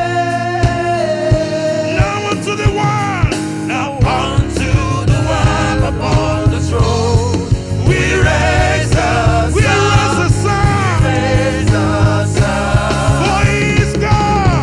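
Gospel worship song: voices singing long, wavering lines over a band with a steady drum beat and sustained bass.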